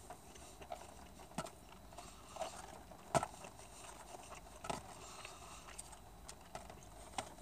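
Eating sounds: chewing chicken nuggets, with a handful of scattered sharp clicks and taps of mouth and handling, the loudest about three seconds in.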